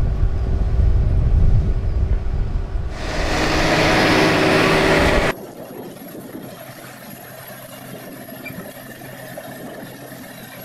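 Large four-wheel-drive tractor's diesel engine working under load as it pulls a disc harrow through soil, a loud low rumble that turns into a louder rushing noise for a couple of seconds before cutting off abruptly about five seconds in. After that, a much quieter steady engine hum from a tractor pulling a wide field cultivator.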